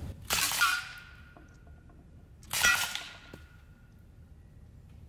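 Two shots from a Sig Sauer MPX CO2 pellet rifle, about two seconds apart. Each is followed by a sharp metallic clang as the pellet strikes a metal can, which rings briefly.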